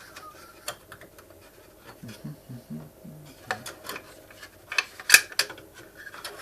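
Small clicks, taps and scrapes of hands working a RAM module out of its memory slot inside a Synology DS1815+ NAS, with a sharper click about five seconds in.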